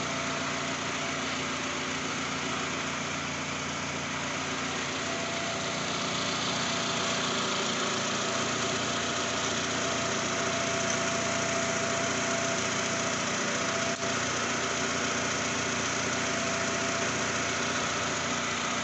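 Freshly rebuilt 2010 Toyota Camry engine idling steadily.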